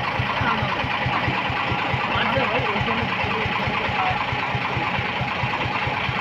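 Komatsu forklift's engine running steadily at idle, with an even low pulse several beats a second. Faint voices of people nearby.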